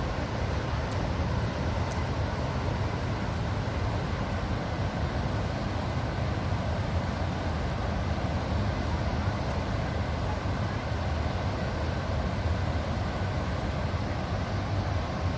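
Waterfall: a steady, unbroken rush of falling water with a deep rumble underneath.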